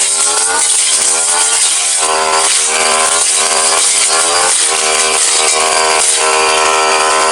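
Brush cutter engine running at high revs with a stamvik metal blade cutting grass; its pitch sags and recovers about once a second as the blade bites into the grass near the ground.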